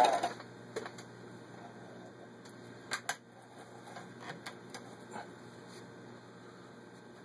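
Vintage Elna 1 sewing machine's motor whine cuts off just after the start, leaving a faint low hum. Scattered sharp clicks and handling noises follow, the loudest a double click about three seconds in, as the denim is pulled from under the presser foot and the needle area is handled.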